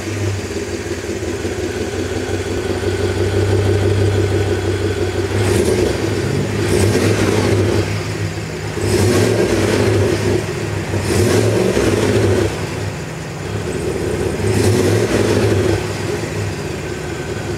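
2023 Chevy Tahoe Premier's 6.2-liter V8 heard at its quad exhaust tips, running just after starting and revved about five times, each rev swelling and falling back to idle.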